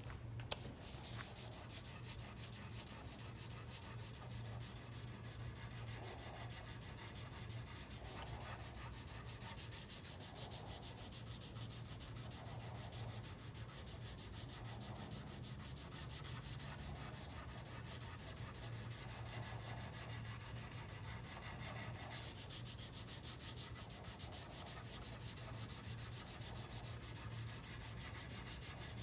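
320-grit sandpaper on a sanding block, dry-sanding cured epoxy on a carbon-fibre rigger in quick, steady back-and-forth strokes to flatten the repair.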